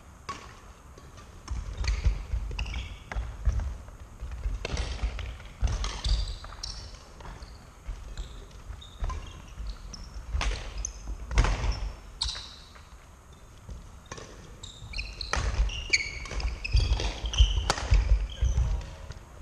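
Badminton rally on a wooden sports-hall floor: sharp racket strikes on the shuttlecock, short high shoe squeaks and heavy footfalls. The play comes in three busy stretches with short lulls between.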